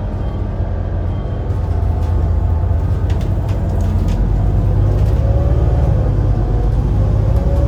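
Volvo B7RLE bus's six-cylinder diesel and ZF Ecolife automatic drivetrain running with a heavy low rumble, and a whine that climbs in pitch over the last couple of seconds as the revs build.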